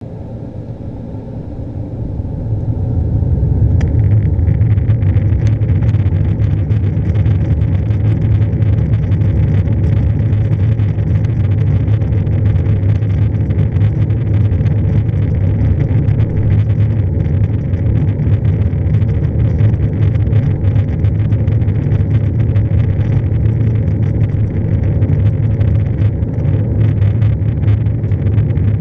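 Embraer 190 cabin noise during the takeoff roll. Its GE CF34-10E turbofan engines spool up over the first few seconds to takeoff thrust, then hold a loud, steady deep roar as the jet accelerates down the runway.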